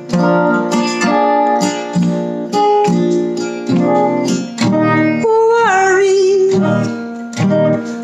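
Acoustic guitar strummed in a steady rhythm through an instrumental break between sung lines, with a short sliding, falling vocal-like sound about five and a half seconds in.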